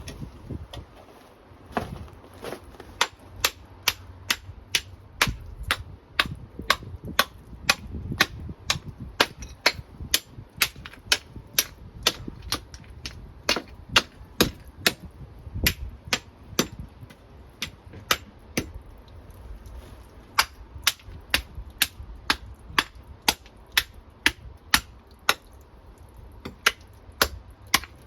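A long series of sharp, hard knocks or taps, about two a second, with a few brief pauses, like a tool striking something hard, as in tapping or hammering during the drain repair.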